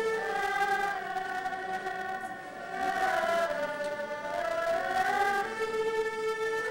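An ensemble of erhu, Chinese two-string bowed fiddles, playing a slow melody in long held notes with smooth slides between pitches.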